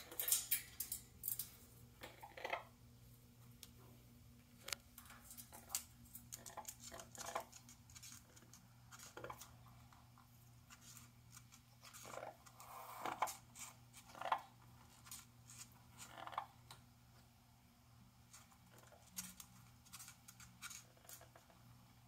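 An Amazon parrot's beak and claws clicking and scratching on metal cage bars and a hard floor, in short irregular clicks and scrapes.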